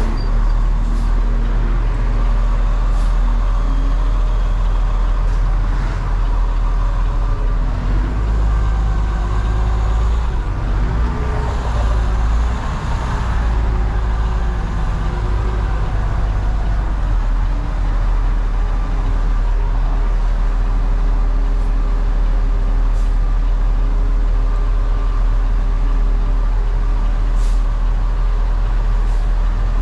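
Cement mixer truck's diesel engine running and road noise heard from inside the cab while driving on the freeway: a loud, steady low drone whose engine note shifts somewhat around the middle.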